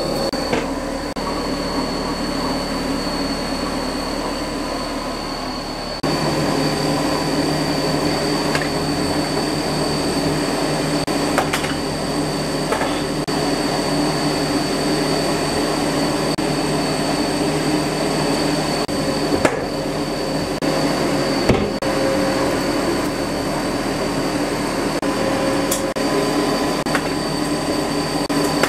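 Steady whir of a 50 W CO2 laser cutter's fans and air pump running during a plywood cutting job, with a steady high whine over it. It steps up louder about six seconds in, and a few light clicks and knocks come as the plywood sheets are handled.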